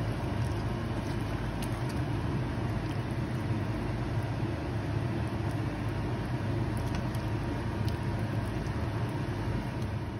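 A steady low rumbling hum, with a few faint clicks as a ladle stirs soup in a stainless-steel pot.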